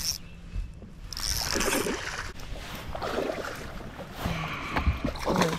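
Water splashing and short knocks around a bass boat as a hooked spotted bass is brought to the boat and landed, with a rushing patch of noise about a second in.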